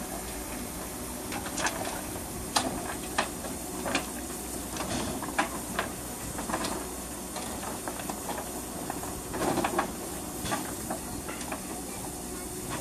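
Standing Harz narrow-gauge Mallet steam tank locomotive 99 5906-5 hissing steadily. Irregular sharp metallic knocks and clanks come through the hiss, a cluster of them about three quarters of the way through.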